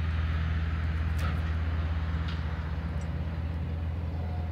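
A steady low mechanical hum, like a motor or engine running, with two faint ticks about one and two seconds in.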